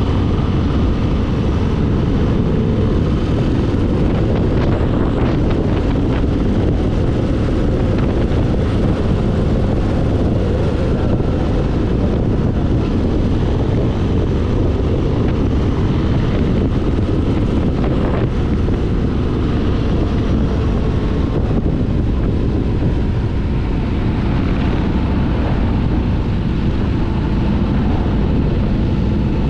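Motorcycle riding along at a steady speed, recorded on board: the engine's steady rumble mixed with heavy wind rushing over the microphone.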